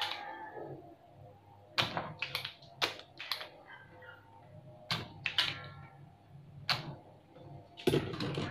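Spring-loaded desoldering pump (solder sucker) being cocked and fired while desoldering a capacitor from a CRT TV circuit board: a series of sharp, irregularly spaced clicks and snaps.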